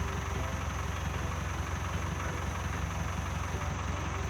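Farm tractor engine idling steadily with a low, even rumble.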